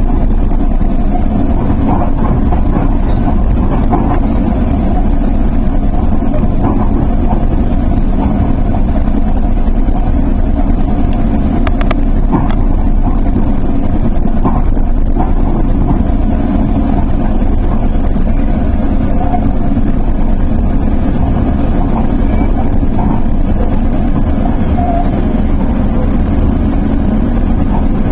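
Sounder commuter train running at speed, heard from inside the passenger coach: a steady, loud rumble of the train and its wheels on the rails, with a few faint ticks.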